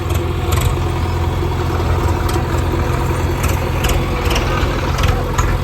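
Heavy diesel engine of a backhoe loader running steadily at work loading soil, with several short sharp knocks and clatters scattered through.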